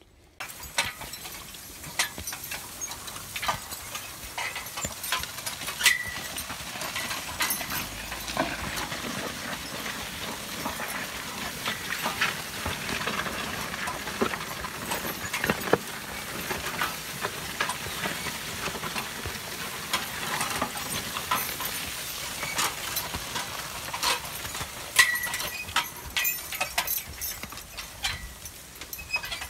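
Horse-drawn sulky plow turning grass sod behind a walking three-horse draft team: a steady scraping, tearing noise of soil and roots with frequent clicks and clinks of harness and plow. A short high squeak comes twice, about six seconds in and again near the end.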